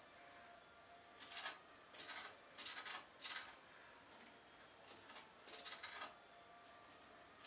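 Faint rustling of dry hay bedding in several short bursts as a newborn long-eared hedgehog shuffles through it, with a faint steady high-pitched whine in the background.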